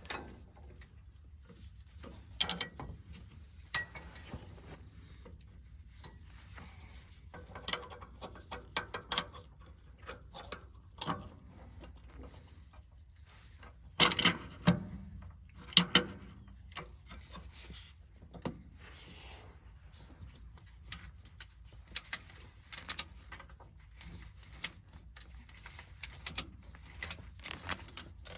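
Hand tools clinking and clicking against metal while hydraulic hose fittings are worked loose, with scattered sharp knocks loudest about halfway through, over a faint low hum.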